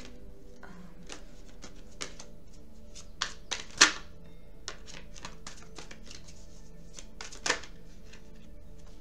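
Soft background music with steady held tones under a scatter of light, sharp clicks and taps, the loudest about four seconds in and again about seven and a half seconds in.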